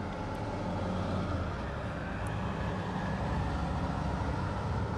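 Car engine idling, a steady low rumble heard from inside the car's cabin.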